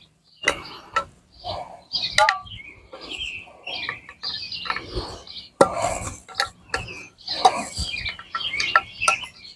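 Quart metal paint can being handled and its lid pried open: irregular metallic clinks, taps and scrapes.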